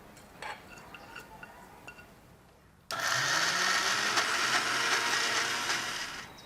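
Kitchen mixer-grinder (mixie) switched on about three seconds in, its motor rising in pitch as it spins up, then running steadily as it grinds soaked dals into a batter, winding down near the end. A few faint clicks come before it starts.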